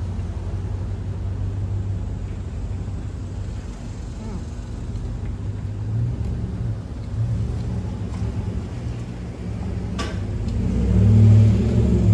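Steady low outdoor rumble that swells near the end, with one sharp click about ten seconds in.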